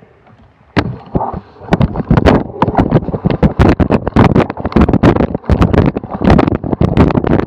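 Loud, rapid, irregular knocking and rattling, with wind on the microphone, starting suddenly about a second in: a bike-mounted camera jolting as a cyclocross bike rides over bumpy grass.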